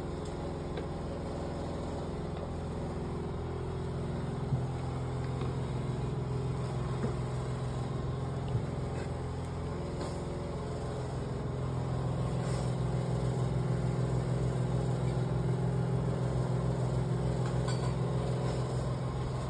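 A steady low mechanical hum, which grows a little louder and takes on a regular throb about twelve seconds in.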